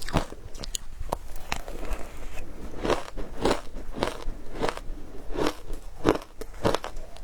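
Frozen matcha ice being bitten and chewed: a run of crisp, sharp crunches, about two a second through the second half.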